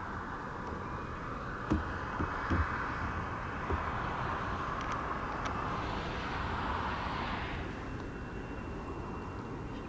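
Distant jet engines of an Airbus A319 moving along the runway: a steady rushing hiss that grows louder and brighter in the middle, then drops back about eight seconds in, leaving a faint whine. A few soft low knocks come about two seconds in.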